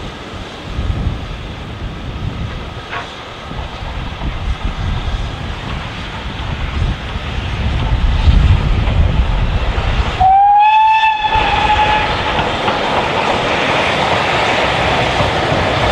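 Steam train approaching, its running noise growing louder. About ten seconds in, the locomotive gives one whistle blast of about a second, rising slightly in pitch.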